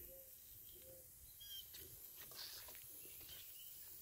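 Near silence, with a few faint bird chirps, the clearest about one and a half seconds in.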